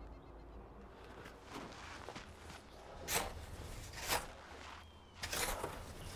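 Snow crunching and scraping in a handful of separate strokes. The loudest come about three and four seconds in, and a longer scrape a little after five seconds.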